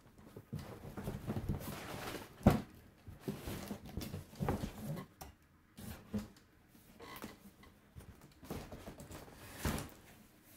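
Irregular knocks, taps and rustles of a cardboard box and its packaging being handled and opened, with one sharper knock about two and a half seconds in.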